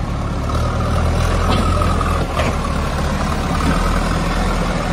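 JCB 3DX backhoe loader's diesel engine running steadily.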